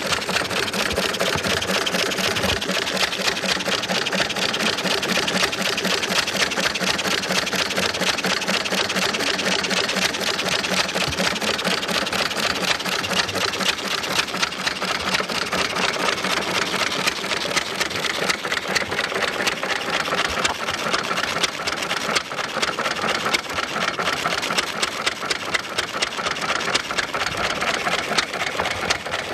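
Old single-cylinder hit-and-miss stationary engine running after just catching, a fast, even mechanical clatter.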